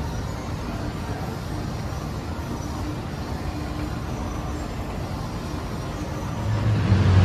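Steady low rumble of shopping-mall background noise while riding an escalator, with a louder steady low hum coming in near the end.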